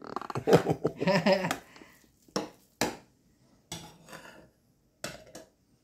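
A spatula scraping stuffing out of a ceramic mixing bowl. A stretch of scraping in the first second and a half is followed by a few sharp knocks of the spatula against the bowl.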